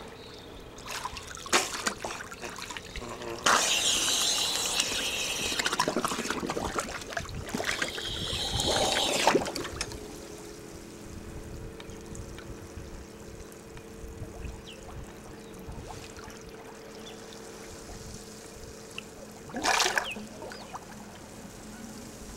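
Water splashing and bubbling as a scuba diver goes under, with his bubbles breaking the surface; the loudest stretch is about six seconds of hissing bubbles a few seconds in. After that, quieter lapping water with a faint steady hum.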